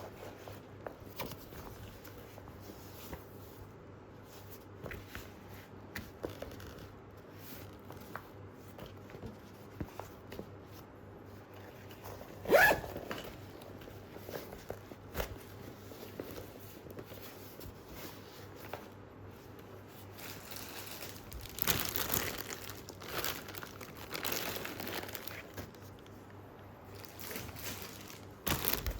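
Rustling and crinkling as a ripstop nylon shoe bag and its packaging are handled, with a sharper, louder rustle about halfway through and a busier stretch of crinkling later on.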